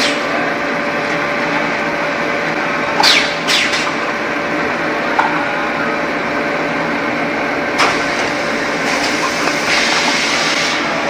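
Automatic EPS foam cup molding machine running: a steady machine noise with a constant hum, broken by short sharp hisses about three seconds in, again half a second later, and near eight seconds.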